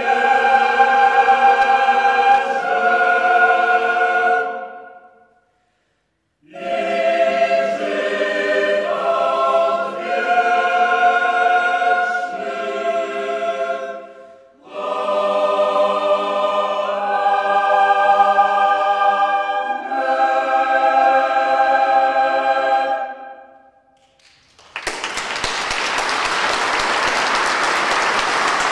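Mixed choir singing long held chords in three phrases with short breaks, the last ending about 24 seconds in. Then the audience applauds.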